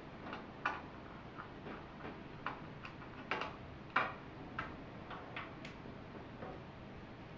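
Tiny lid screw on the side of a rackmount server case being turned out by hand, giving a run of small, irregular clicks and ticks, the sharpest about four seconds in.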